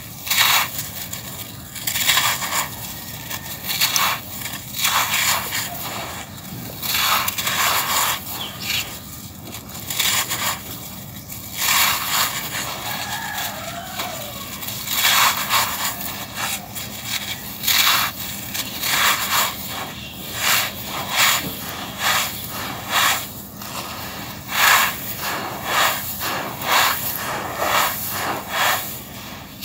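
Hands crushing dry packed sand chunks into loose sand: gritty crunching and crumbling, with the grains pouring and hissing out of the hands. It comes in irregular bursts, about one a second.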